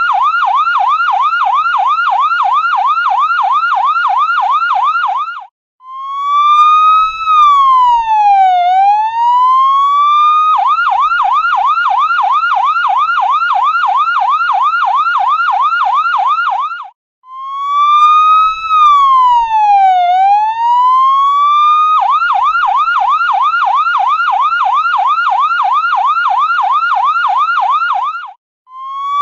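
Ambulance electronic siren switching between a fast yelp, about three rapid up-down pitch sweeps a second, and a slow wail that falls and rises once over about four seconds. The pattern goes yelp, wail, yelp, wail, yelp, with short breaks where the sound cuts out between sections.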